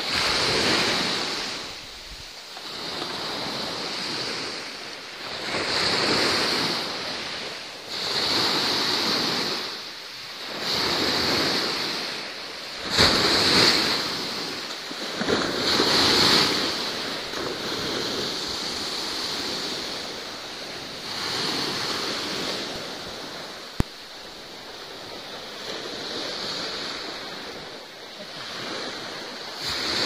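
Sea waves surging and washing, the rush of water swelling and ebbing every two to three seconds. A single sharp click comes a little before three-quarters of the way through.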